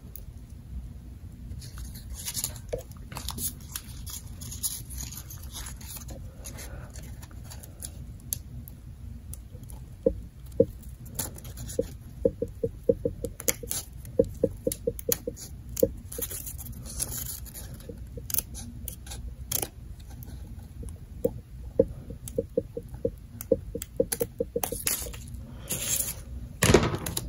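Small scissors snipping through folded printer paper in a series of short cuts, with runs of quick small clicks and paper rustling; a louder rustle of handled paper near the end.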